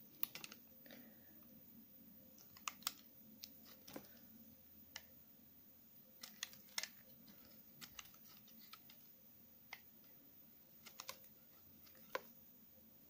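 Utility knife blade shaving curls off a bar of stuck-together soap scraps: irregular crisp crackles and clicks, sometimes two or three in quick succession, with short pauses between cuts.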